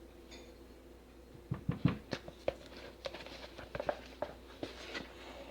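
Irregular small clicks and taps of a utensil against a plastic container while soap batter is poured and scraped into a mold, starting about a second and a half in, thickest in the first second.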